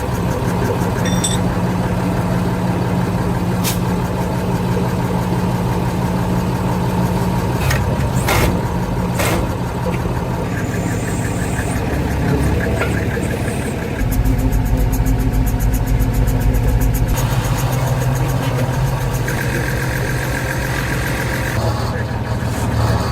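Mercedes Unimog's OM352 six-cylinder diesel running steadily. About two-thirds of the way through it gets louder and harsher for a few seconds, then settles back.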